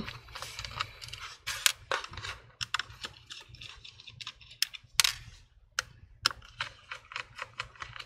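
Phillips screwdriver backing small screws out of a laptop's plastic bottom case: irregular light clicks of the tip and screws, with faint scraping in between.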